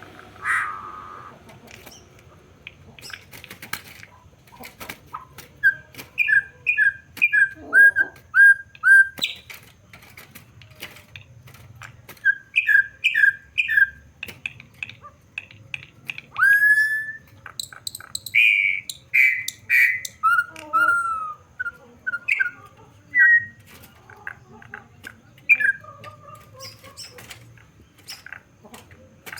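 Campo troupial (corrupião) singing: repeated phrases of short, loud, clear whistled notes with pauses between them, mixed with a few sharp clicks.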